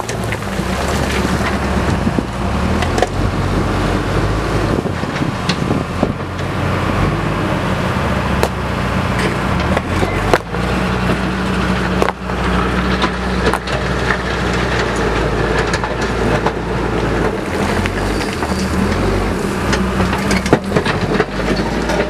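Tata backhoe loader's diesel engine running under load, its revs rising and falling as the front bucket pushes soil and rocks. Scattered sharp knocks of stones come through over the engine.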